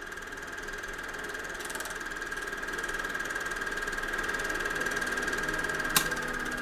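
Film projector running: a steady high hum with a hiss that grows gradually louder, and one sharp click about six seconds in.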